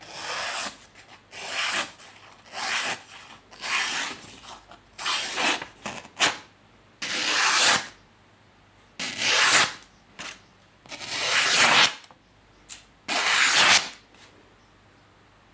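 A chef's knife blade of O1 tool steel slicing through a hand-held sheet of printer paper in about nine separate strokes, each a short papery swish, with a few brief ticks between them. The slicing is a test of the sharpness of the finished edge.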